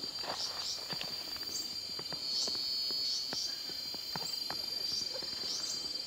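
Steady high-pitched drone of forest insects, swelling for about a second midway, with short high chirps and faint clicks scattered through.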